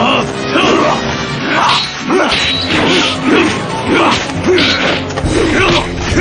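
Action-scene soundtrack: background music with a run of hit and crash sound effects, about one every half second to second, some paired with short shouts.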